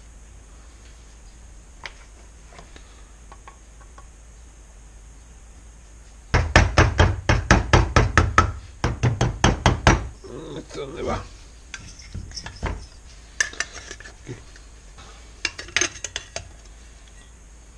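Metal parts of a Honda GX35 engine being handled and tapped during reassembly. About six seconds in comes a quick run of sharp metallic taps, about five a second, for some four seconds, followed by scattered clicks and clatter.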